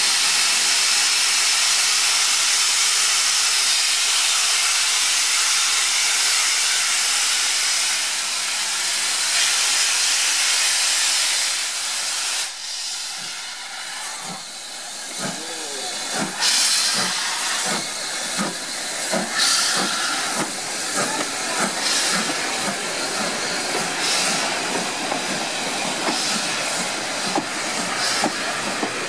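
BR Standard Class 4 2-6-4 tank steam locomotive hissing loudly as steam blows off while standing, then starting away. The exhaust gives slow, uneven chuffs with steam bursts from the open cylinder drain cocks, the beats coming closer together as the train moves off.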